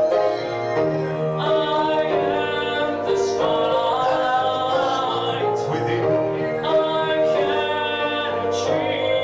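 Male voices singing a musical-theatre song with grand piano accompaniment.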